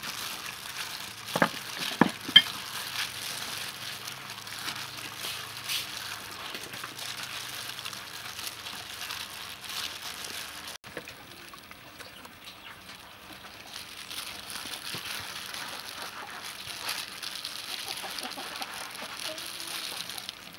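Wet squelching and sloshing as a gloved hand squeezes and kneads a runny banana-and-coconut-milk mixture in a stainless-steel bowl. There are a few brief louder sounds about two seconds in, and liquid keeps dripping and splashing through a sieve into a plastic bowl later on.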